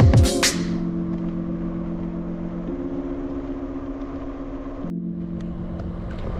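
Electronic background music: the drum beat stops about half a second in, leaving sustained synth chords that change twice.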